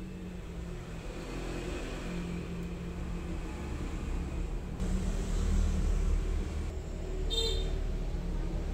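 Low background rumble that swells about five seconds in and eases again, with a brief high metallic ping about seven seconds in.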